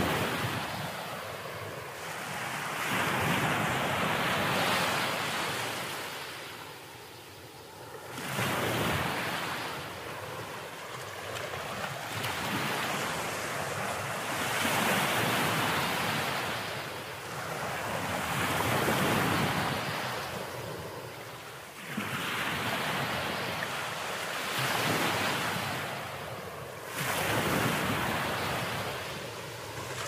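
Ocean surf washing onto a beach: waves swelling and receding in turn, about one every four to five seconds, some breaking with a sudden rush.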